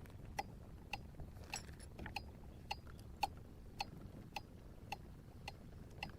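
Fishing reel clicking steadily as line is reeled in on a hooked trout, a little under two sharp, ringing clicks a second, over faint low wind and water noise.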